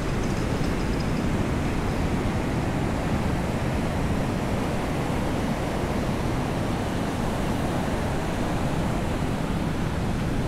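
Sea surf and rain on a beach, making a steady, even rushing noise.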